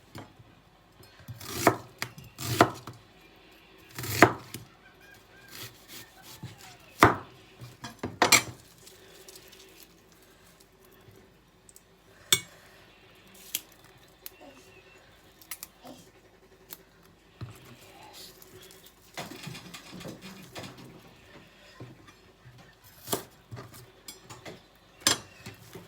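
Knife cutting on a wooden chopping board: irregular sharp knocks, a few of them loud, with clinks of kitchenware in between.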